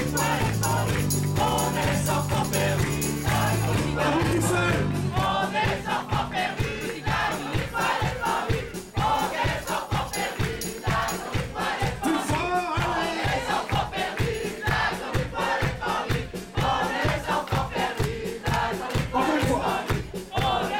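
Live folk-rock band playing an instrumental passage on accordion, electric bass and guitar. It opens on sustained chords; after about four seconds a steady, fast kick-drum beat comes in, with shouting voices over the music.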